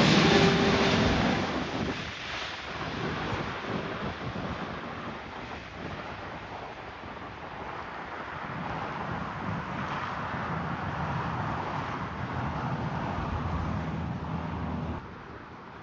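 Airliner jet engine noise, loud at first and fading over the first couple of seconds as the plane moves away, then a lingering low rumble mixed with wind on the microphone, which cuts off suddenly near the end.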